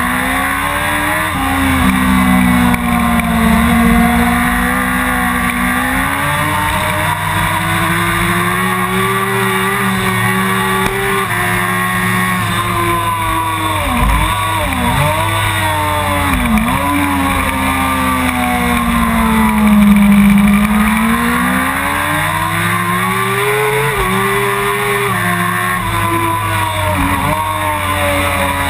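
Suzuki GSX-R 1000's inline-four engine at racing speed, its pitch climbing and falling through acceleration, gear changes and braking. Three quick dips in pitch come in the middle, and the revs drop suddenly about three-quarters of the way through.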